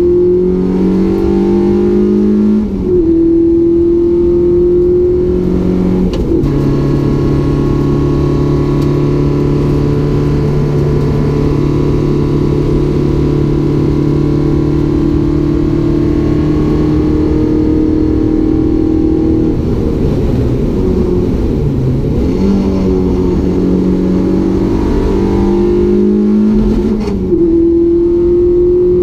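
Renault Clio 172's 2.0-litre four-cylinder engine heard on board at full throttle. The note climbs, drops at gear changes about three and six seconds in, then holds steady for a long stretch. It falls and wavers as the car slows, then climbs through the gears again near the end. The engine is newly fitted and held to 6000 rpm.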